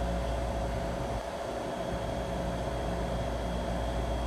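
Steady hum of running machinery, with a constant low drone and a faint high whine, dipping briefly a little over a second in.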